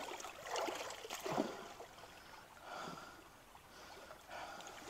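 Shallow creek water sloshing and trickling around a person's legs as she wades knee-deep, in soft irregular swells.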